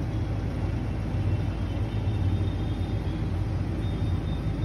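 A steady low rumble at an even level, with no clear strikes or changes.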